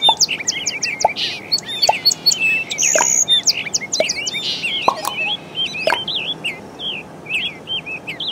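Many small songbirds chirping and twittering in quick, overlapping calls, busiest at first and thinning out in the last couple of seconds.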